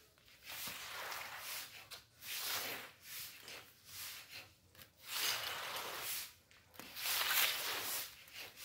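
Repeated swishing, scraping strokes of a long-handled floor cleaner pushing wet leaves and rainwater across a concrete floor, about one stroke a second with short pauses between.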